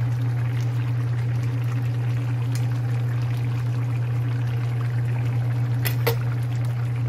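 Coconut-milk stew simmering in a stainless steel pan on a gas stove: a steady hiss over a steady low hum, with two light clicks about six seconds in.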